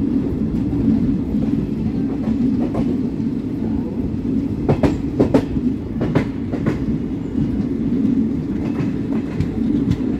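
Indian Railways train running on the track: a steady low rumble, with a run of sharp wheel clacks over the rail joints about halfway through.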